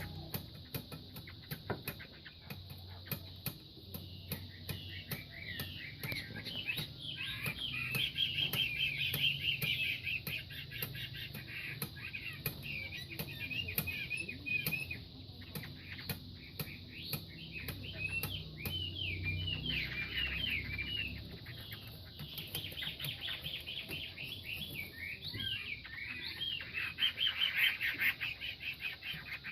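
Chinese hwamei (họa mi) songbirds fighting: bouts of quick, warbling call runs of short rising and falling notes, with many sharp clicks throughout.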